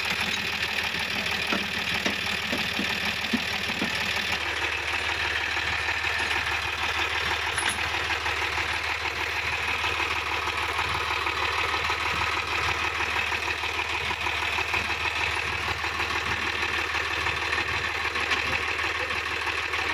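Diesel tractor engines running steadily with an even, rapid beat, neither revving up nor dying down.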